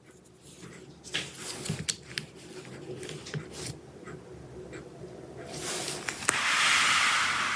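Small clicks and scrapes of tools and parts being handled inside an opened laptop, then a loud, even hiss lasting about two seconds near the end.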